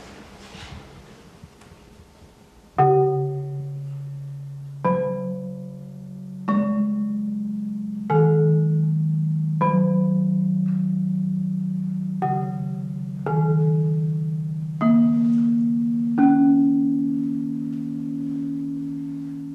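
Lithophone's tuned stone slabs struck one at a time with a mallet: about nine notes, the first a few seconds in. Each stroke has a bright attack whose upper ring dies quickly while a low tone rings on, so the notes overlap into a sustained chord that fades slowly after the last stroke.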